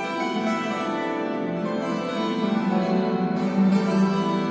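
Two guitars playing together, a continuous run of plucked and strummed notes and chords.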